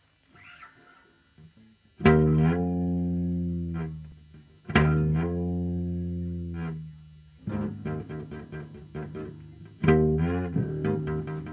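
Bass guitar played with no accompaniment: two loud plucked notes about three seconds apart, each ringing for about two seconds. Then come a run of quick short notes, another loud note near the end that wavers in pitch, and more short notes.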